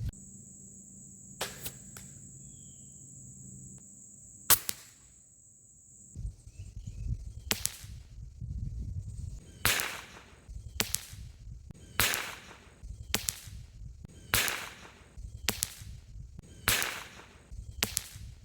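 Sharp, whip-like shots from a .22 pellet air rifle and a crossbow. A few single cracks come first, the loudest about four and a half seconds in. Then a run of sharp snaps comes about once a second over a low rumble.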